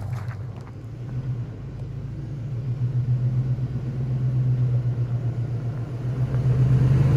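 Off-road vehicle's engine running at low revs, a steady low drone that dips about a second in and then builds gradually.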